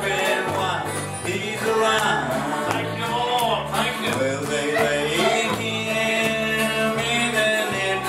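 Live gospel song: a man singing with a strummed acoustic-electric guitar and an electric bass playing underneath.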